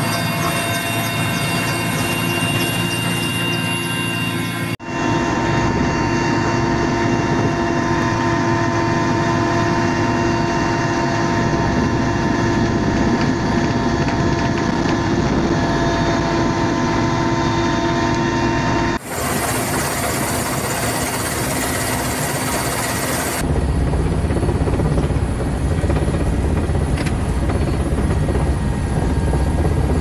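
Helicopter engine and rotor noise heard from inside the cabin, steady and loud, as it flies with a firefighting water bucket slung below. The sound changes abruptly about five, nineteen and twenty-three seconds in, where separate recordings are cut together.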